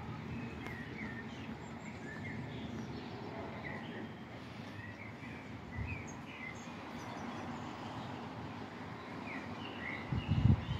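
Small birds chirping repeatedly over a steady low background rumble. A few loud low thumps come near the end.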